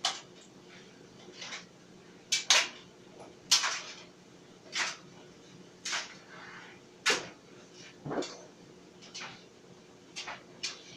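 Clothes dryer running: a steady motor hum with a short knock or clatter about once a second as the drum turns and the load tumbles.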